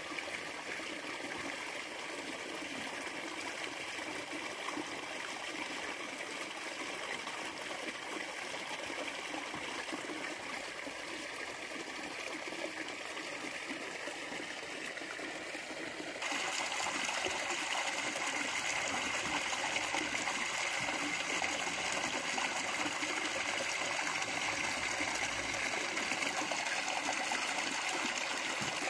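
Water running steadily into a koi pond from its inlet spillway, a continuous rushing and splashing. A little past halfway it suddenly becomes louder and brighter, then stays steady.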